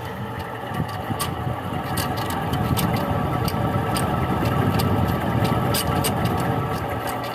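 Mini-split air conditioner running with a strange noise: a low, uneven rumble with scattered ticks over a steady hum. The rumble builds toward the middle and eases near the end.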